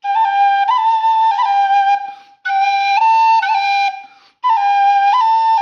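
Thai khlui, a vertical duct flute, playing the same short phrase three times with brief pauses between, its clear tone stepping back and forth between a few close notes.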